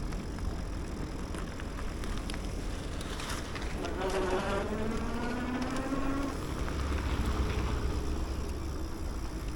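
Wind and road rumble from riding, with a motor's buzzing whine rising steadily in pitch for about two seconds midway, then a heavier low rumble.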